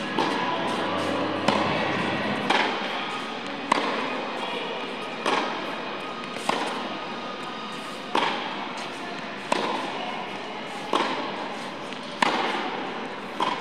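Tennis racket striking the ball in a rally, about ten sharp hits at a steady pace of roughly one every second and a half, each ringing briefly in a large indoor hall. Music plays underneath.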